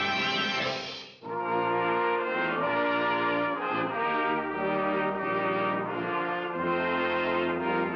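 Orchestral cartoon score with brass (trombones and trumpets) playing held chords over a moving bass line, after a brief break about a second in.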